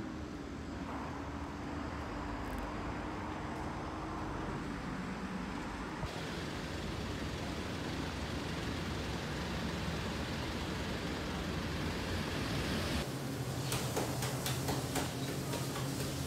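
Road traffic noise, a steady rush of passing cars. Near the end it changes to an indoor steady low hum with a run of sharp clicks.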